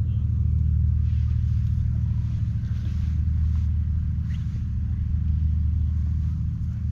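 A 1955 Landini L25's 4.3-litre single-cylinder hot-bulb engine running steadily, a deep, even low-pitched sound.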